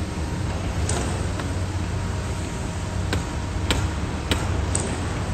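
Steady city ambience: a low hum of distant traffic with an even background rush. A few short, sharp ticks cut through it, one about a second in and four more in the last two and a half seconds.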